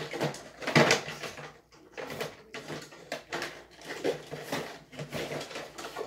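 Irregular clicks, knocks and rattles, a few a second, of things being handled and moved about while someone rummages for something.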